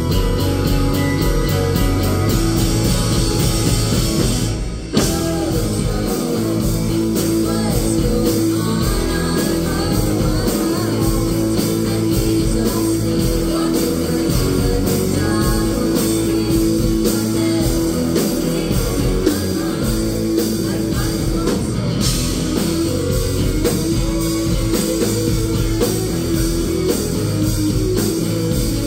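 Live indie rock band playing: electric guitars, electric bass and drum kit with sung vocals, with a brief break in the music about five seconds in before it comes back in.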